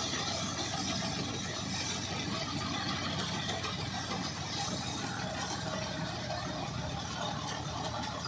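John Deere tractor's diesel engine running steadily under load as it drives a straw reaper (bhoosa machine), with the machine's cutter and blower working continuously as it chops stubble and blows the straw into a trailer.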